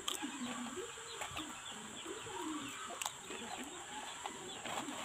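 Chickens clucking repeatedly, with a few sharp crunches from someone biting crisp banana chips.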